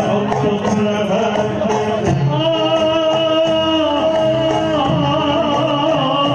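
Arabic wedding music: a male singer holds long, wavering notes over instrumental accompaniment.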